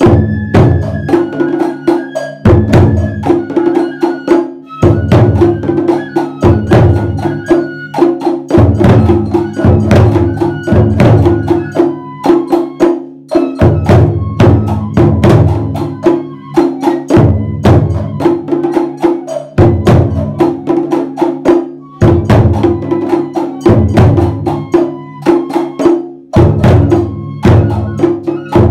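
Japanese festival drumming (ohayashi): taiko drums beaten with wooden sticks in a fast, driving rhythm, with deep strokes recurring about every two seconds. A high bamboo-flute melody runs above the drums.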